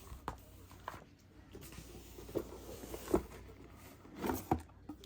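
Soft handling noises of a cardboard trading-card box and its paper booklet: a scatter of light taps and rustles, a few clicks a second apart.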